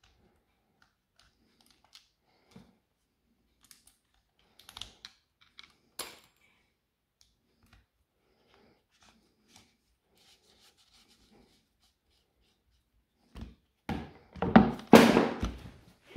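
Small clicks and scrapes of a screwdriver and fingers working the brush cap on a Hitachi angle grinder while new carbon brushes are fitted. Near the end come louder knocks and rustling as the grinder is handled and turned over on the rubber mat.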